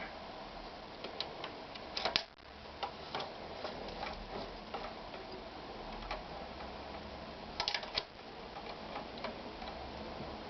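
Victoria 739 sewing machine running, with a light ticking clatter from its mechanism. Louder clicks come about two seconds in and again near the eight-second mark, each followed by a brief drop in level.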